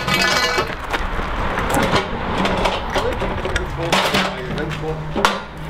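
Heavy timber catapult frame being levered with wooden poles and shifted on a hand pallet truck: irregular wooden knocks and scraping, with a sharp knock about five seconds in.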